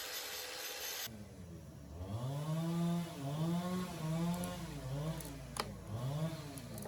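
A small engine revved in short repeated blips, its pitch rising, holding and falling again and again. Before it, a steady hiss stops suddenly about a second in, and there is a single sharp click near the end.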